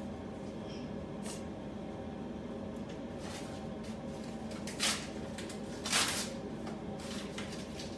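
Raw marinated meat being handled and threaded onto bamboo skewers, with two short rustles about five and six seconds in, over a steady low mechanical hum from a kitchen appliance.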